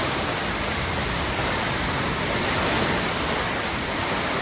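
Steady, even rushing noise of heavy storm rain and floodwater, with no single sound standing out.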